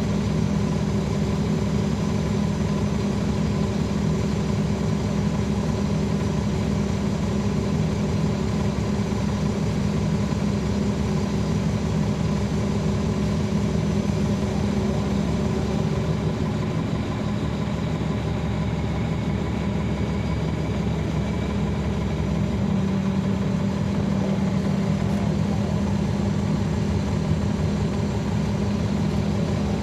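Caterpillar C13 ACERT diesel engine of a NABI 40-foot transit bus, heard from the rear seat inside the bus, running with a steady low drone.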